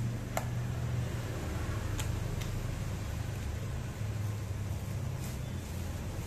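Steady low machine hum, with a few light clicks and rustles of plastic cling film being peeled off.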